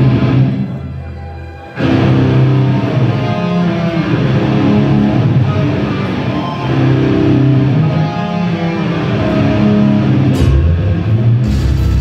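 Death metal band sound-checking live through the venue PA: a low swell fades, then about two seconds in distorted electric guitars and bass come in suddenly with a heavy riff, and a fuller, heavier section starts just before the end.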